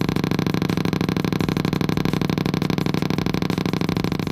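Car speaker driven by the PAC TL-PTG2 tester's rapid-pulse mode: a fast, even string of pops that runs together into a steady buzz. It is the speaker-pop test signal used to find which speaker a wire leads to.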